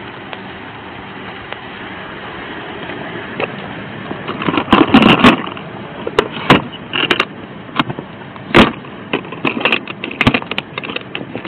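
Sharp clacks and knocks of things being handled in an open plastic kit case at a vehicle, starting about four seconds in and coming irregularly, over a steady background hiss.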